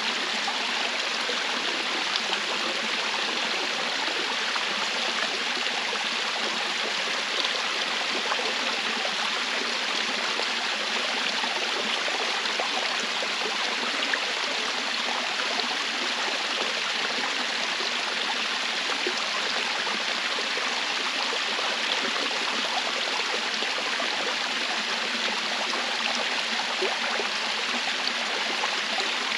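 Flowing stream water rushing steadily, an even splashing hiss that does not change.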